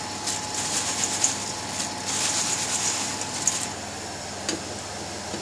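Fried chips rustling and rubbing against paper towel in a stainless steel colander as it is shaken, in a run of short bursts that stop after about three and a half seconds. A steady background hum runs underneath, and there is a single light tap near the end.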